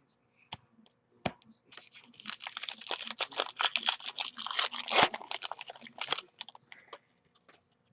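Plastic wrapper of a trading-card pack being torn open and crinkled: a couple of single clicks, then about four seconds of dense crinkling and tearing that thins out to a few ticks near the end.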